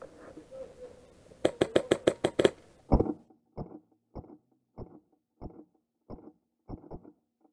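A quick burst of about eight airsoft rifle shots in about a second. Then come about eight deeper, duller thumps spaced evenly a little over half a second apart: the burst played back in slow motion.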